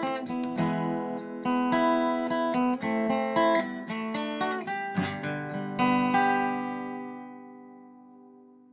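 Outro music on acoustic guitar: quick picked notes and strummed chords, ending on a final chord about six seconds in that rings out and fades away.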